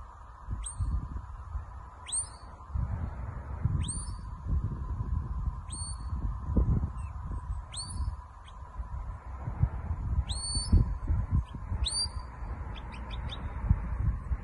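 Shepherd's whistle commands to a working sheepdog: short whistles that rise quickly and hold a high note, repeated about every two seconds, with a quick run of short pips near the end. Low gusty wind rumble on the microphone underneath.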